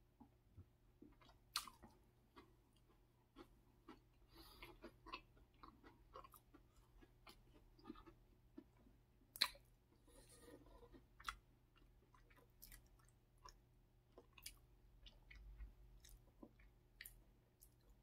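Faint close-miked chewing and mouth sounds, with scattered sharp clicks and light taps as a plastic cola bottle and crackers are set down on a wooden board.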